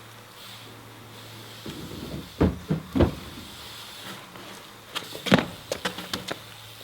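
BMX bike riding on a wooden backyard ramp: three knocks of the wheels and frame about two and a half to three seconds in, then a quicker run of clattering knocks and rattles around five to six seconds in.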